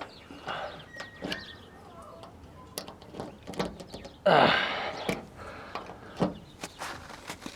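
Old keys rattling on their ring and clicking as one is pushed and wiggled in the 1968 Impala's lock cylinder, with a louder scraping rattle about four seconds in. The key comes close but does not turn the lock.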